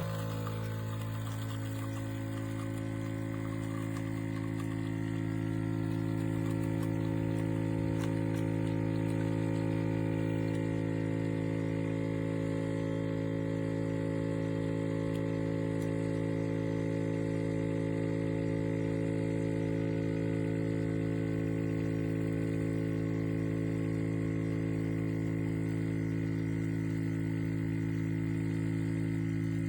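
Philips L'OR Barista Sublime capsule coffee machine's pump running as it brews, a steady buzzing hum that starts abruptly.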